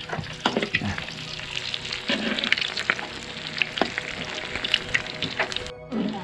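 Mackerel frying in a pan of hot oil: a steady sizzle with many small sharp pops and crackles, briefly cut off near the end.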